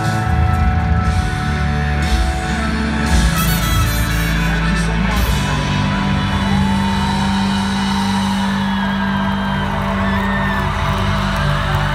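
Live band playing loudly through a stadium sound system, heard from within the crowd. About five seconds in the drums drop away, leaving a steady low held chord with sliding notes above it.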